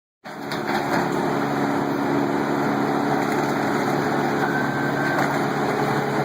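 Wood chipper's engine running steadily, starting abruptly about a quarter second in.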